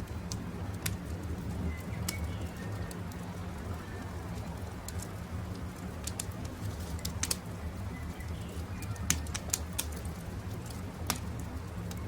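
Campfire crackling, with sharp pops at irregular intervals over a steady low rumble, and birds calling faintly in the background.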